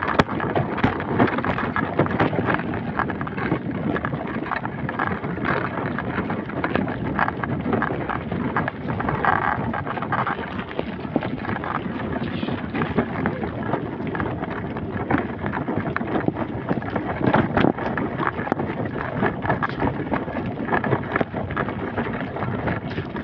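Wind buffeting the microphone of a phone carried on a walk, a steady rough rush with many small crackles and knocks throughout.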